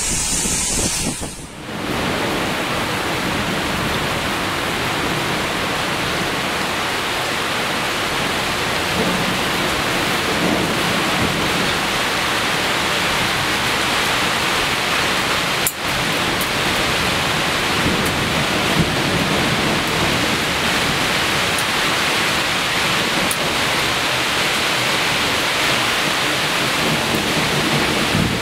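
Heavy downpour from a rainstorm: a loud, steady, even hiss of rain. After a brief break near the start, it holds constant.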